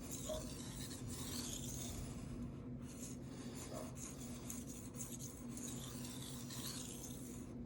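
Steel knife blade scraping back and forth across a wet Shapton Rockstar 1000 whetstone in repeated sharpening strokes, raising a burr along the edge.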